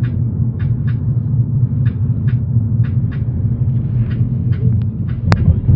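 A car driving, a steady low rumble, with light repeated ticks over it and one sharp click near the end.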